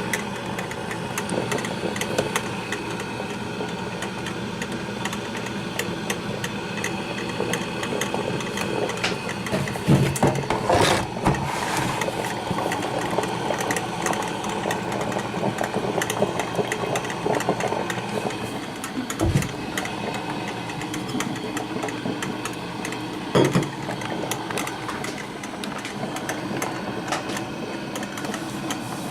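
1987 Black & Decker thermal carafe drip coffee maker brewing: a steady hum with scattered clicks and pops, louder for a couple of seconds about ten seconds in, and a short thump near the end.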